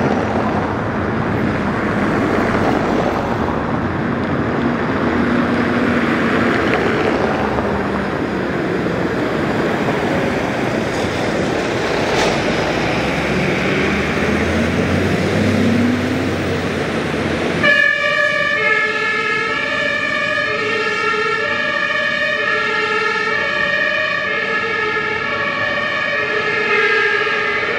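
Fire engine and rescue van engines running as they drive off amid street traffic. About two-thirds of the way through, a two-tone emergency siren cuts in sharply and alternates steadily between a high and a low note, each held about half a second.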